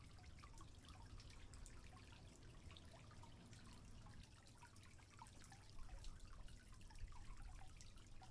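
Faint trickling water with many small, irregular drips and plinks.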